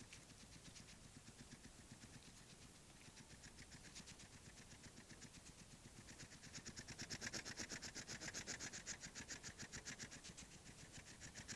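Hedgehog sniffing close to the microphone: a fast, even run of short snuffling sniffs, several a second, that grows louder about halfway through.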